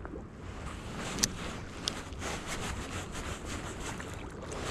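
Wind on the microphone and gentle sea water lapping, with two short sharp clicks less than a second apart.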